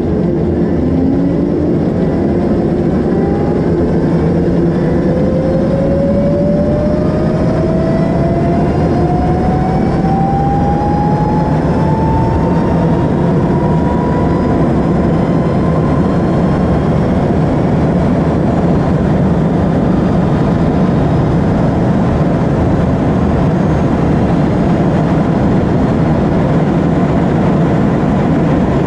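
Electric motorcycle accelerating flat out. Its motor whine rises steadily in pitch for about the first fifteen seconds, then holds at top speed, under loud, steady wind and tyre rush on the onboard microphone.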